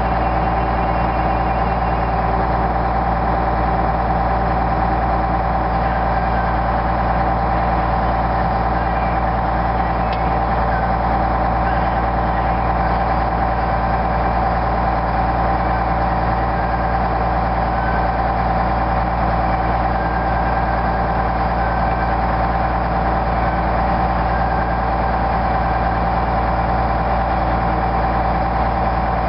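Snowcat groomer's diesel engine running steadily under work, an even drone with a constant whine over it and no revving.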